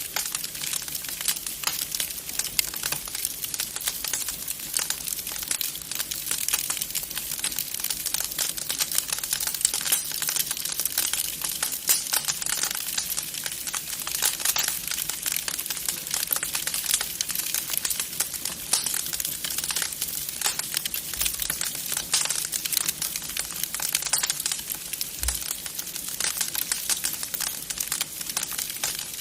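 Wood burning in a fireplace, crackling steadily with many small snaps and pops.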